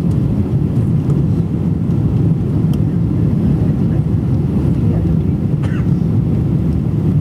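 Steady low roar of a Boeing 777's engines and rushing air, heard inside the passenger cabin on the landing approach with the flaps extended.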